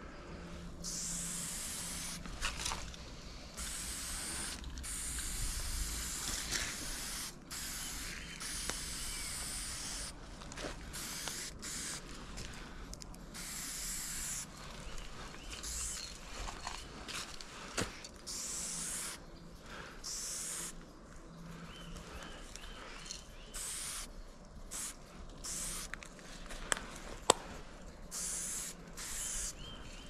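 Aerosol spray paint can hissing in a long run of on-off bursts, some short, some several seconds long, as paint is laid onto a concrete wall. One sharp click stands out about three seconds before the end.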